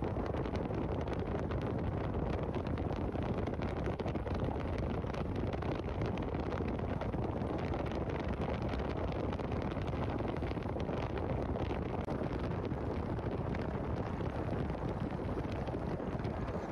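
Wind blowing across the microphone: a steady, deep rushing noise with no break.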